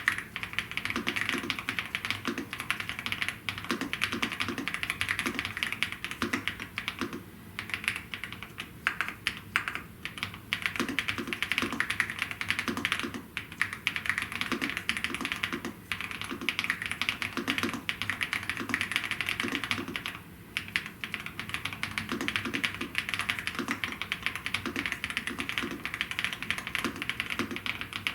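Fast, continuous typing on a Gravastar K1 Pro mechanical keyboard: a dense stream of keystroke clicks, broken by a few short pauses.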